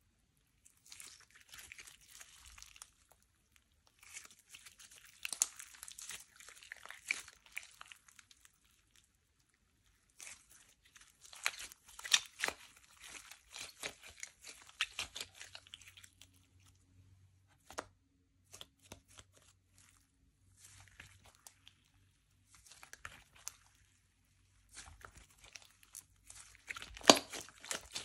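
Slime being stretched, pressed and folded by hand, giving bursts of sticky crackling and clicking pops in groups of a few seconds with short pauses between, loudest near the end.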